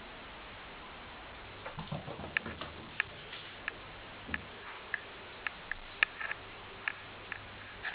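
A cat playing with a ball: a string of light, irregular clicks and taps with a few soft thumps, starting a couple of seconds in.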